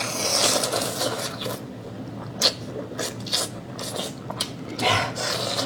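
Close-up eating noises: slurping and chewing of seafood such as oysters, in irregular noisy spurts.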